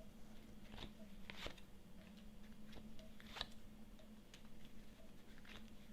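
Faint light clicks and rustles of tarot cards being handled and laid down, a few separate touches over a low steady hum.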